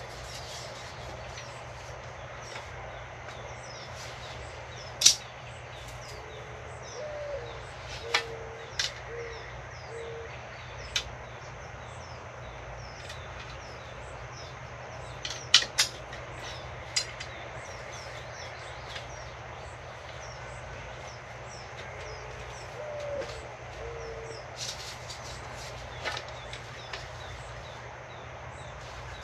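Sharp metal clicks and clacks as clamps are snapped onto the black metal trellis bars, the loudest at about five and fifteen seconds in. A dove coos twice, a short rising call followed by a few lower notes, over a steady low hum.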